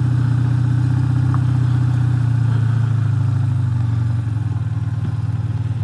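Motorcycle engine running at low revs as the bike rolls slowly to a stop. It eases off slightly about four seconds in.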